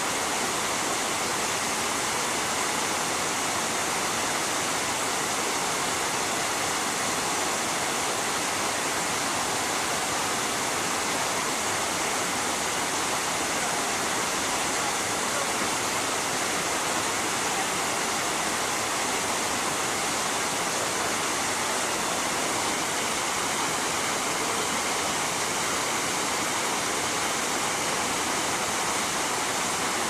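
Dzhur-Dzhur waterfall pouring onto rocks in a steady, unbroken rush of falling water.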